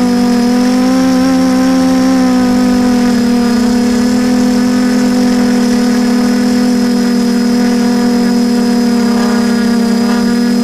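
DJI F450 quadcopter's brushless motors and propellers humming loudly and steadily, picked up by a camera mounted on the frame. The pitch wavers a little in the first couple of seconds, then holds level.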